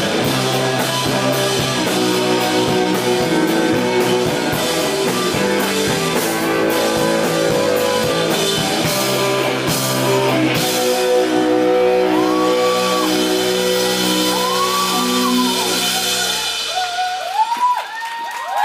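Live rock band, with a drum kit and electric guitars, playing the loud ending of a song. About ten seconds in, the drums stop and the guitar chords are left ringing. High gliding whistles come in over them, and near the end the music stops as the crowd begins to cheer.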